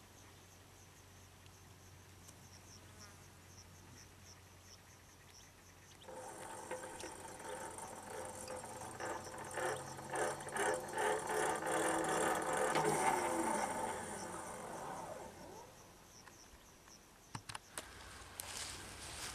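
Faint insect chirping, then about six seconds in the sound of a passing train sets in, builds to a peak and drops in pitch as it goes by, fading away. Sharp clicks near the end.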